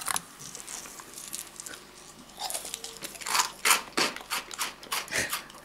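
A person biting and chewing hard food frozen solid in liquid nitrogen, crunching loudly. A string of irregular sharp crunches starts about two and a half seconds in.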